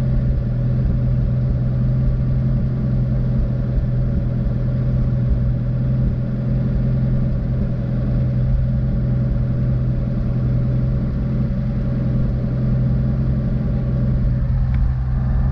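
1952 GMC truck engine idling steadily, with the slight sputter that the owner puts down to old stale fuel in the tank.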